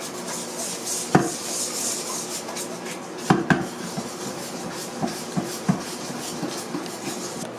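Wire whisk stirring thick batter in a stainless steel bowl: a soft scraping, with several sharp clinks of metal against the bowl.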